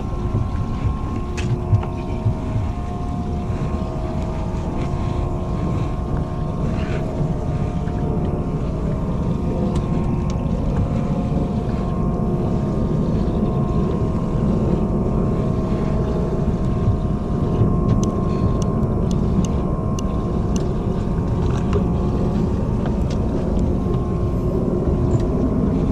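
A boat's engine running steadily: a constant low rumble with a steady hum.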